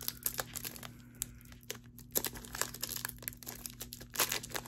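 A trading card pack's wrapper being torn open and crinkled by hand, in irregular crackles and small tearing sounds.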